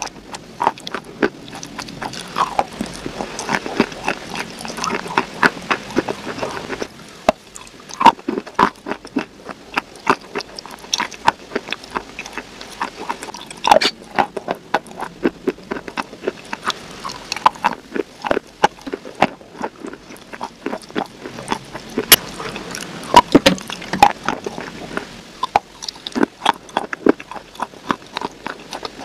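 Close-miked eating: crunchy bites and chewing with many sharp crackles and wet mouth clicks.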